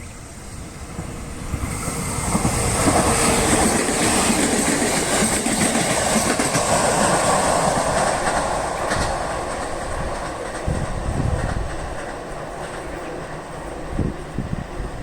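A train passing over a level crossing: wheel rumble and clatter with a high hiss build up about two seconds in, hold loud for several seconds, then die away, with a few low knocks near the end.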